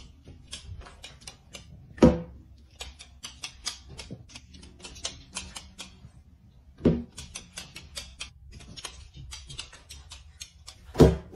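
Balloons bursting one at a time: three sharp loud bangs about five seconds apart, the first the loudest, with quick irregular clicking between them.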